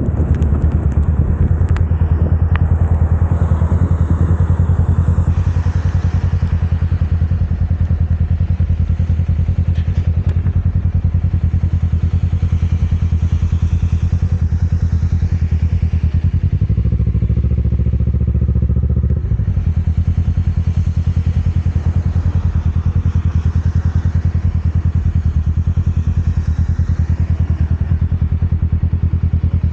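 Motorcycle engine running at low, steady revs, heard from the rider's seat, with its note changing for a couple of seconds just past the middle. A light hiss of tyres on the wet road sits underneath.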